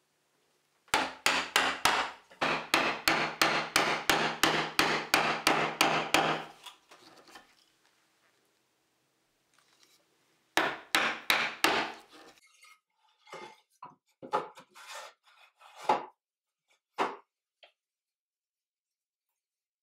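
Mortise chisel being driven into a wooden beam by a wooden mallet: a fast run of sharp blows, about four a second, then after a pause a second shorter run. After it come softer, irregular knocks and scrapes as the chisel levers the waste chips out of the mortise.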